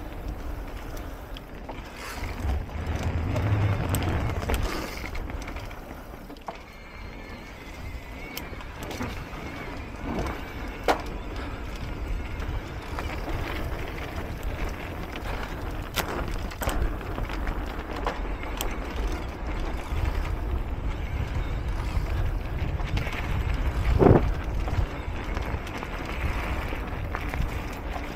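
E-mountain bike ridden along a dirt trail: a steady low rumble from the tyres and the ride, with scattered knocks and rattles over bumps, the loudest a sharp knock near the end.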